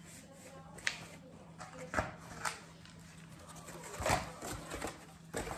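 Handling noise: a paper napkin rustles against the mouth, then a cardboard pizza box is handled and lifted, giving scattered short rustles and soft knocks, the loudest about four seconds in. A faint low hum runs underneath.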